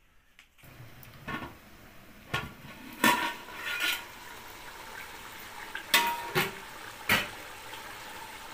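Metal lid and spoon clanking against a large aluminium cooking pot, about seven sharp clanks with a brief metallic ring on two of them, over a steady hiss of chicken simmering in its own juices.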